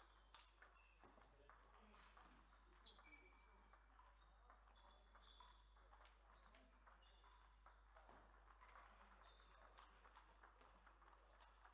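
Faint, irregular clicks of table tennis balls striking table and bats, with short high-pitched shoe squeaks on the floor, over a steady low mains hum.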